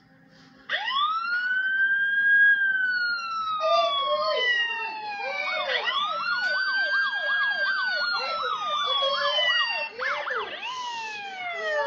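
Electronic siren from a toy police car's lights-and-sounds module, playing through its small speaker. It starts under a second in with a long wail that rises and slowly falls. About halfway through a second wail and a quick repeating yelp join it, and a faster warble comes near the end.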